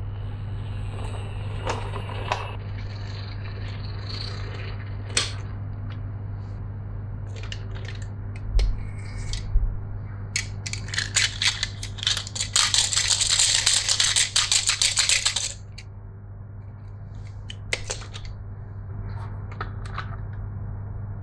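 Marbles rolling and clacking down a wooden marble run: scattered clicks and knocks, then a dense rattling clatter of many marbles for about five seconds from roughly halfway in, over a steady low hum.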